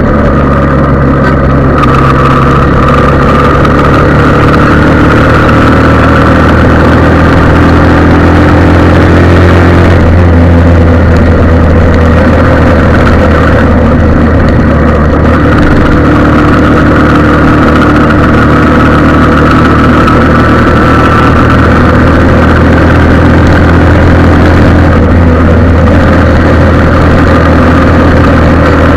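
An engine idling steadily and loudly, with no revving.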